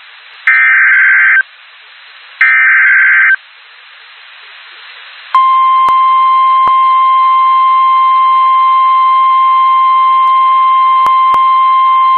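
NOAA Weather Radio alert signal. Two one-second bursts of the screechy SAME digital header tones play with radio hiss between them. About five seconds in, the steady warning alarm tone starts and holds, announcing a new warning (a flash flood warning).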